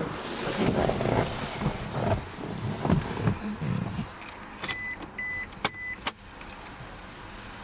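Irregular knocks and rustling of someone handling things inside a vehicle, then three short, high electronic beeps about half a second apart, with two sharp clicks among them.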